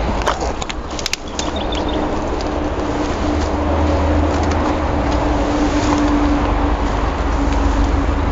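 Steady low rumble of a running vehicle engine, with a few clicks and rustles in the first second or so.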